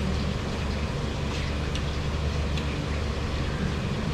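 Steady low mechanical hum, with a few faint light clicks in the first half.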